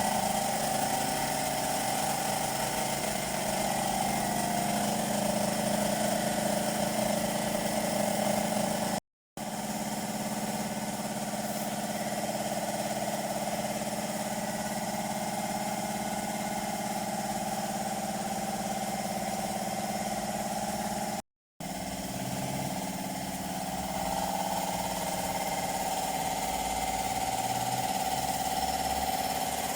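A motor running steadily at an even speed, in three stretches joined by two brief dead-silent breaks.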